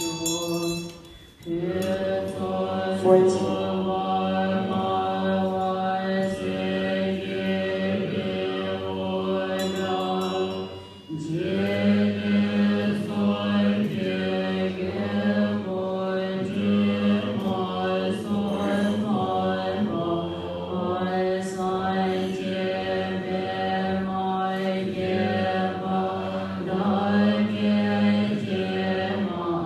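Voices chanting a Tibetan Buddhist long-life puja liturgy together on a low, steady reciting pitch. The chant breaks off briefly about a second in and again about eleven seconds in, then carries on.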